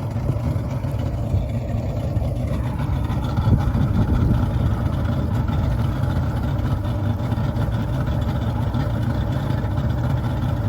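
Mariner 150 hp V6 two-stroke outboard motor running at low trolling speed, a steady drone whose tone shifts slightly about two and a half seconds in.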